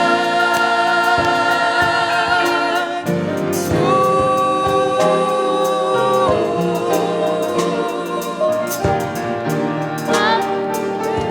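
Gospel choir singing long held notes with vibrato over a band accompaniment with a regular beat.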